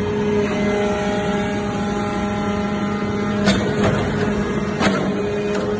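Hydraulic briquetting press running: a steady hum from its hydraulic pump unit, with a higher whine held for about three seconds, then a few sharp clicks.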